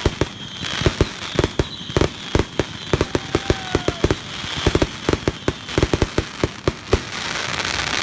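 Fireworks display at close range: a dense barrage of sharp bangs and crackling reports, several a second in an irregular rhythm.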